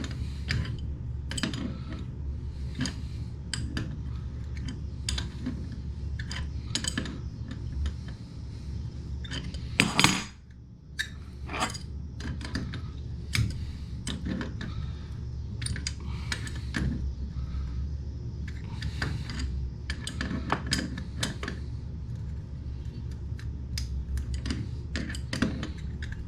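Pliers or a wrench clinking and clicking against the metal nut and fittings as a toilet water supply hose is snugged onto the fill valve, irregular short clanks with one louder knock about ten seconds in, over a steady low hum.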